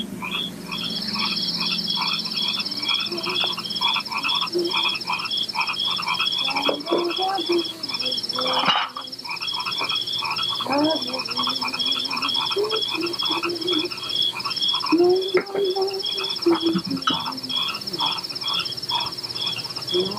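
Night-time nature sound effects: frogs croaking in a steady rhythm of about three calls a second, with a high, steady insect trill setting in about a second in, and a few low hooting calls of an owl.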